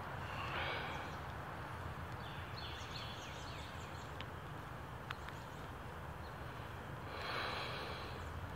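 Quiet woodland background noise with a steady low rumble, and a person breathing out heavily twice, about a second in and again near the end. A quick series of short, high, falling chirps comes about two and a half seconds in.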